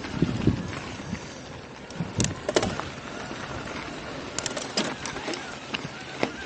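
Mountain bike rolling fast down a dirt flow trail: tyre and wind noise, with several sharp clatters of the bike's chain and frame over bumps and landings, about two seconds in, near the middle and near the end.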